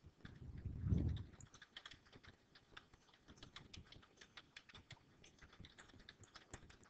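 Faint typing on a computer keyboard, a quick run of light keystrokes, with a low bump about a second in.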